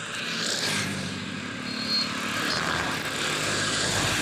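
Road vehicles passing close by, a motor scooter among them: engine hum and tyre hiss swell in, stay loud for a few seconds, then begin to fade.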